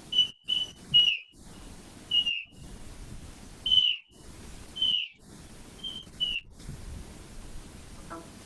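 Short, high chirping whistles: about nine brief notes in irregular pairs and singles, some falling slightly in pitch. They come through a video-call microphone whose sound cuts out between several of the notes.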